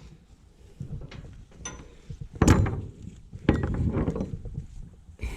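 Metal parts clanking and rattling, with two louder knocks about two and a half and three and a half seconds in.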